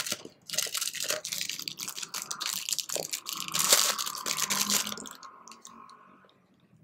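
Crackling, rustling handling noise with many small clicks as the book lamp's light piece and its packaging are handled, fading out about five seconds in.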